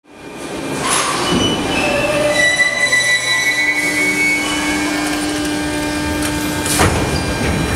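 Metro train of Soviet 81-717-type cars braking to a stop at the platform, its wheels and brakes squealing in several high steady tones over the running rumble. The sound fades in at the start, and a single sharp knock comes about seven seconds in.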